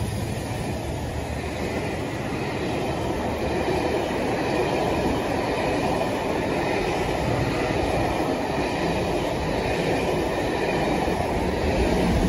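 Passenger coaches of a loco-hauled train passing at speed: a steady rumble of wheels on rail, growing a little louder near the end.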